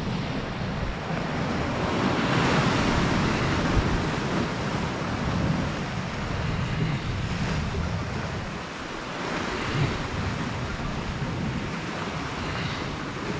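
Sea waves washing in and breaking against a rocky shoreline, rising and falling in surges, with wind buffeting the microphone.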